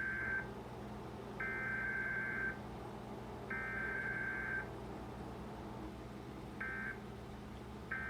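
Emergency Alert System SAME data bursts from a broadcast EAS test: the end of one header burst, then two more full header bursts of about a second each, a second apart. These are followed by two short end-of-message bursts, the last one cut off at the end. Each burst is a pair of steady high data tones with a buzzing sound.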